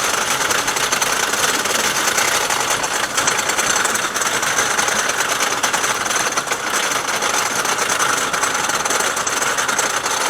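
GCI wooden roller coaster train clattering on its track, a steady, rapid mechanical rattle that holds an even level throughout.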